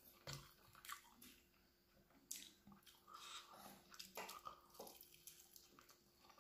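Faint, scattered wet smacks and clicks of eating by hand: fingers mixing rice and chicken curry on a steel plate, and biting and chewing a chicken leg piece.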